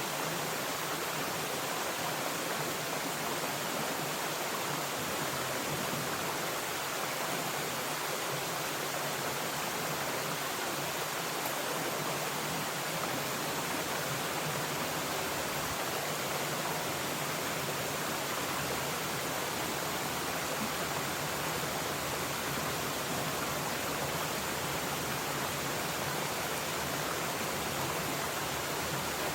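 Mountain stream flowing steadily, an even rushing of water.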